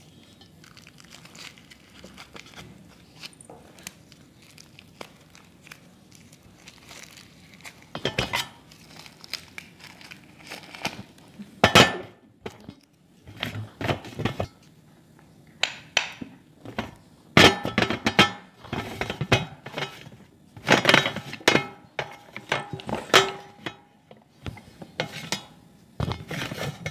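Hard chalky bars set down and shuffled on a stainless steel plate, making irregular clinks and knocks against the metal. A plastic wrapper crinkles quietly at first, and from about eight seconds in the clatter gets busier and louder.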